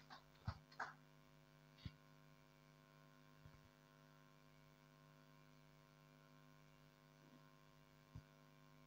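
Near silence: a faint steady electrical hum, with a few soft knocks in the first two seconds and one more near the end.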